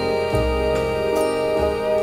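Soft jazz music from a Latin vocal jazz album: long held notes over a bass line, with a few light percussion taps.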